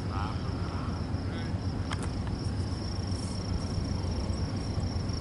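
Crickets chirring in one steady, high-pitched trill over a low continuous rumble, with a faint click about two seconds in.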